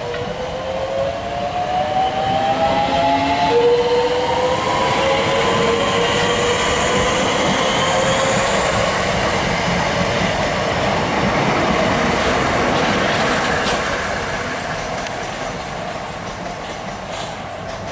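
Southeastern electric multiple unit running out along the platform: its traction motors whine in several tones that rise slowly in pitch as it gathers speed, over the rumble of wheels on the rails, fading toward the end. A few sharp clicks near the end.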